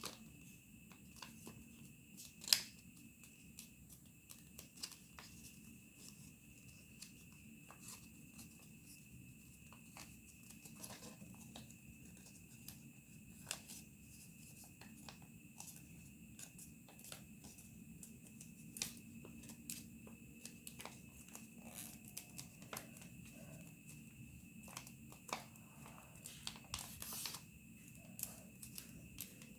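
Origami paper being handled and folded: faint, scattered crinkles and light taps, with one sharper click about two and a half seconds in.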